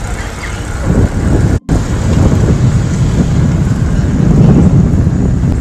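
Wind buffeting the microphone of a phone carried on a moving bicycle: a loud, deep, steady rush that breaks off for an instant about one and a half seconds in.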